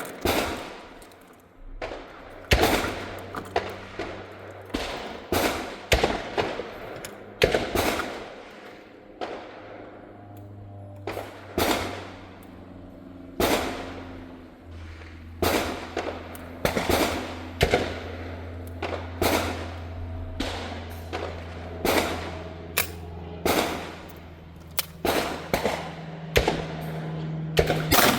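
Repeated gunshots, about two dozen sharp cracks at uneven gaps, some in quick succession, each with a short echo. A faint steady low hum sits underneath.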